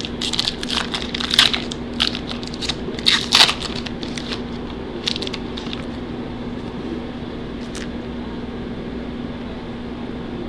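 A foil trading-card pack wrapper being torn open and crinkled, a burst of crackling for the first few seconds, then only a few light clicks of the cards being handled. A steady low hum runs underneath.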